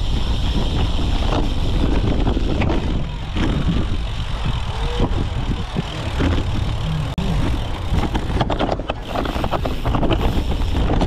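Steady wind buffeting and rumble from riding over rough ground, picked up by a camera mounted on the seat post of a cyclocross bike being raced. A cluster of sharp rattles and knocks comes about eight to ten seconds in.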